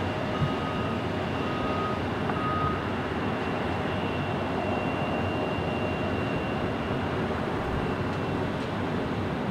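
Steady jet aircraft noise at an airport, with a faint high steady whine. A ground vehicle's reversing beeper sounds about once a second for the first three seconds, then stops.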